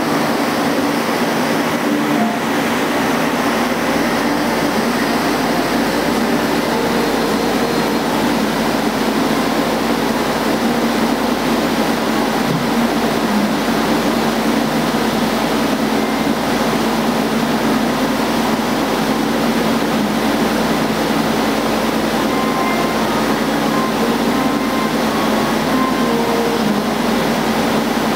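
CNC machine milling a metal part under coolant spray: spindle and cutter running with a steady, dense noise of cutting and spraying coolant.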